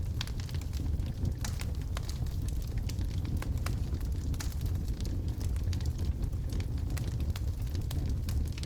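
Wood logs burning in a fireplace: a steady low rumble of the flames with frequent irregular crackles and pops.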